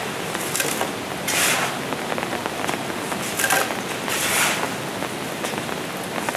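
Shovels scraping and digging into wet mud and gravel, a short gritty scrape every second or two, over a steady hiss.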